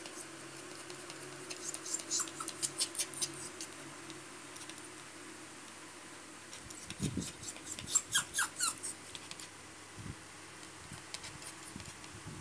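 Fireworks crackling in two rapid bursts of sharp pops, the second coming just after a low thud, with another thud near the end.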